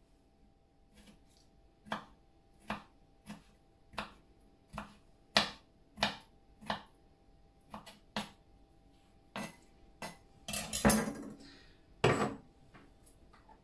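Small kitchen knife dicing soft peeled apricots on a plastic cutting board: single knocks of the blade against the board, a little under one a second. About ten and a half seconds in comes a longer, louder noise, then one sharp knock.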